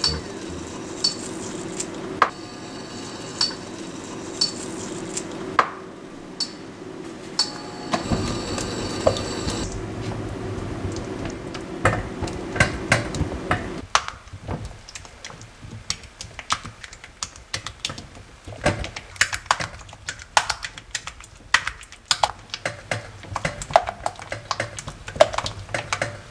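Silicone spatula stirring melting chocolate and butter in a glass bowl over a water bath, with clinks and scrapes against the glass. A steady low hum runs underneath through the first half and stops about halfway, after which the taps on the glass come quickly and closely spaced.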